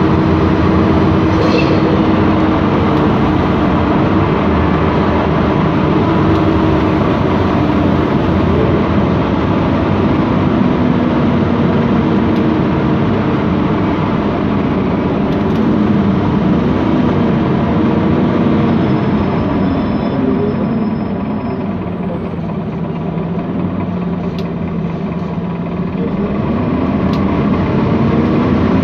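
MAN Lion's City CNG city bus running, its MAN E2876 straight-six gas engine and turbo cooling fan droning steadily. About two-thirds of the way through, the engine pitch sinks and the sound eases off as the bus slows, then climbs again near the end as it picks up speed.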